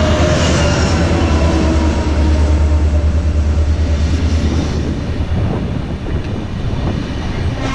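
A DSB ME-class diesel-electric locomotive passes at close range, hauling double-deck passenger coaches. Its diesel engine gives a loud, deep drone over the rolling noise of the wheels, and the drone drops off about five seconds in as the coaches run past.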